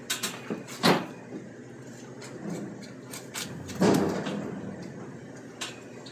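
Scattered knocks and thuds from a beef round being worked with a knife and a meat hook on a plastic cutting table as the seam between top and bottom round is opened. The two loudest come about a second in and just before four seconds.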